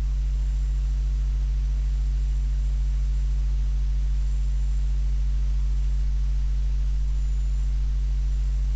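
Steady low electrical hum in the recording, a constant drone with a fainter higher overtone, typical of mains hum picked up by the microphone or sound card.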